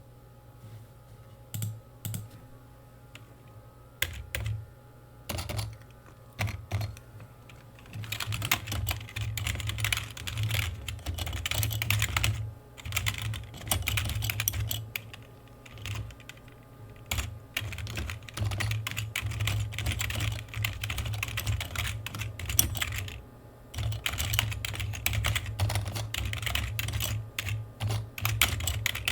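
Typing on a computer keyboard: a few separate keystrokes at first, then fast continuous runs of key clicks broken by short pauses.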